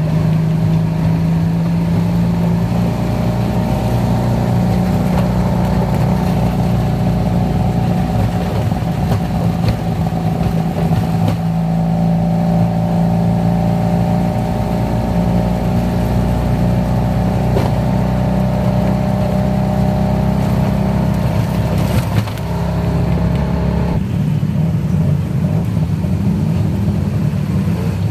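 Tuk-tuk engine running steadily under way, heard from the open rear passenger seat, with a steady low hum and several held engine tones. A single sharp click comes near the end, and the engine note drops soon after.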